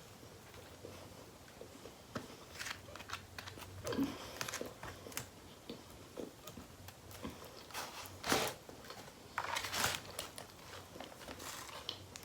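A person eating, chewing and biting into food, with scattered short crunches and clicks; the loudest come about eight seconds in and just before ten seconds.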